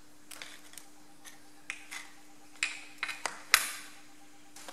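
A screwdriver clicking and scraping against the engine's metal backing plate while prising out a perished rubber plug: a run of short sharp clicks, the loudest about three and a half seconds in.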